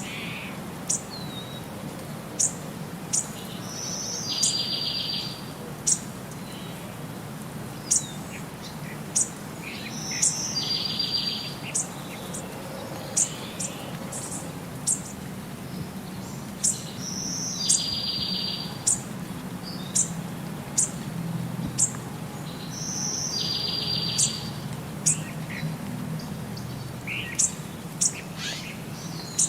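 Birds chirping with many short, sharp notes, while one bird repeats a short buzzy trill about every six to seven seconds, over a low steady hum.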